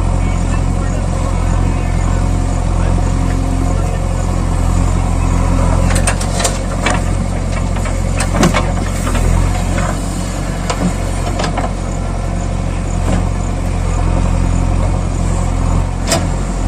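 A vehicle engine running steadily at a low idle, with scattered sharp clicks and rattles of gravel and plastic as a toy loader scrapes and tips small stones.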